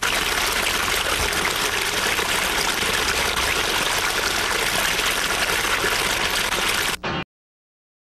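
Muddy floodwater rushing and splashing over a small rocky drop into a pool, a steady loud rush that cuts off suddenly about seven seconds in.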